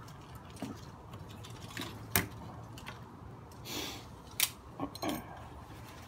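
Small tools and objects being handled on a workbench: two sharp clicks about two seconds apart, with short rustles and light metallic clinks in between.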